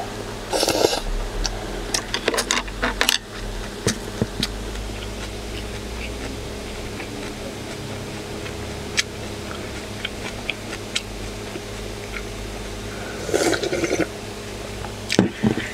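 Noodles slurped off chopsticks about half a second in, then light clicks and chewing; near the end, broth is slurped straight from the tipped stainless steel bowl.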